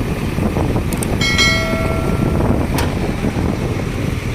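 JCB 3DX backhoe loader's diesel engine running with a steady low rumble. About a second in, a single metallic clang rings on for about a second and fades, the higher notes dying first, typical of struck steel such as the bucket meeting the truck body.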